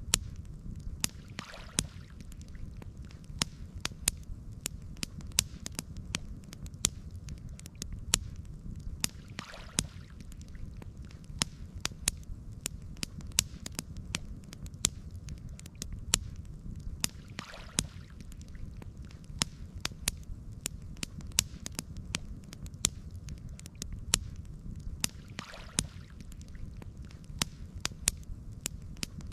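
Campfire crackling: frequent sharp pops and snaps of burning wood over a steady low rumble of the flames. A soft swell of rushing noise comes about every eight seconds.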